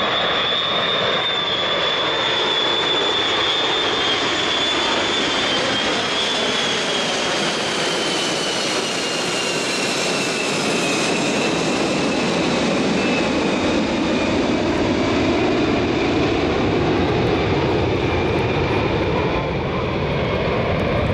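Jet noise from a formation of five Kawasaki C-1 military transports, each with two Pratt & Whitney JT8D turbofans, flying low overhead. It is a steady rushing sound with a high whine that slowly falls in pitch as the planes pass and move away.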